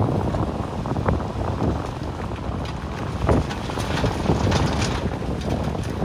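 Komatsu D61EX bulldozer's diesel engine running steadily, with wind buffeting the microphone. From about halfway in, scattered clanks and clatter join it, more often toward the end.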